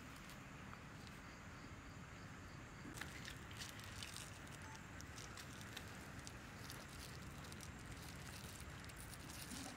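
Faint crackling of dry palm fronds and twigs catching fire, with scattered small crackles from about three seconds in that grow more frequent.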